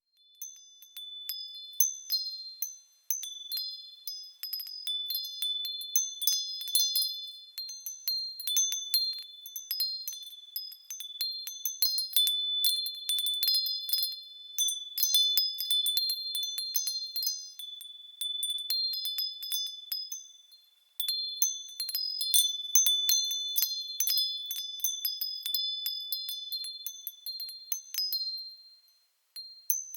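Wind chimes with small, high-pitched bells tinkling irregularly, several notes struck over and over and overlapping as they ring out. There are a few short pauses.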